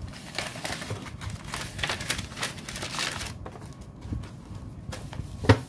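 Paper envelopes rustling and sliding against each other as they are picked up and sorted by hand, then a single sharp tap near the end.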